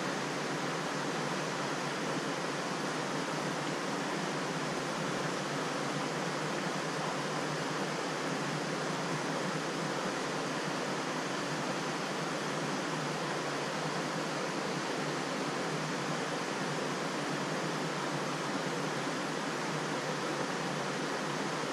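Steady rushing of flowing river water, an even hiss with no change.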